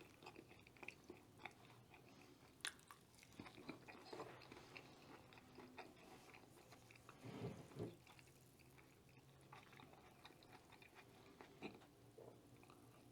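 Quiet, close-miked chewing and biting of crunchy food, with many small crackling clicks and a louder bite about seven and a half seconds in.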